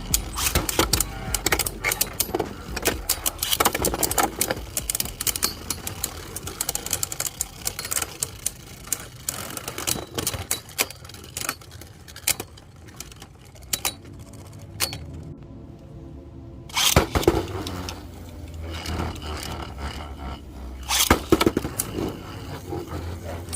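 Beyblade Burst spinning tops battling in a plastic stadium: rapid clicking and clashing of the tops against each other and the stadium walls, with a quieter stretch in the middle and sharp hits near the end.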